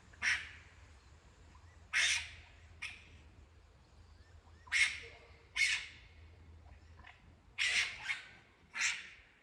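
Seven short, harsh, raspy screeches from an animal up in a tree, unevenly spaced a second or two apart, with the third one weaker. They are a horrible sound, and the recordist guesses they come from raccoons.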